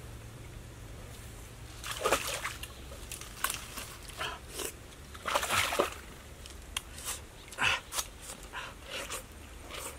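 Irregular splashing and sloshing in shallow water with rustling, in a dozen or so short bursts, the loudest about two seconds in and again around five and a half seconds, as a person moves about and handles fruit beside a wooden dugout canoe.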